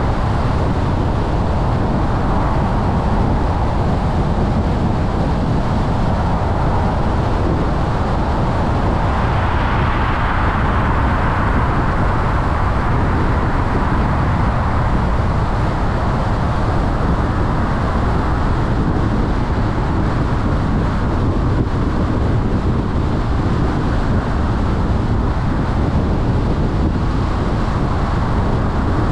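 Steady road and wind noise of a car driving at highway speed: a low tyre rumble under a rushing hiss that swells briefly about ten seconds in.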